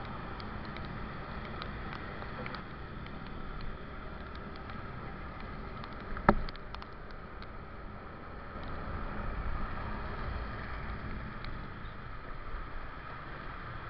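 Wind and road rumble from a motorcycle ride on a wet road, heard on the bike's camera microphone, with scattered light ticks and one sharp knock about six seconds in.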